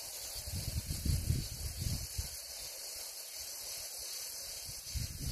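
A steady high hiss, with wind buffeting the microphone in low rumbles about a second in and near the end.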